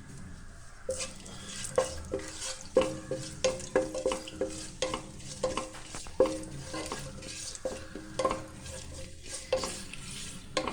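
A spoon stirring whole spices frying in hot oil in a pan, knocking and scraping against the pan again and again with a short ringing note each time, over a soft sizzle.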